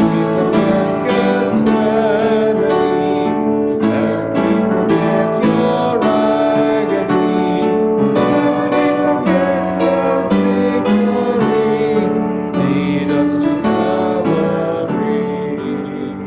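Piano playing a slow piece of held chords, fading near the end.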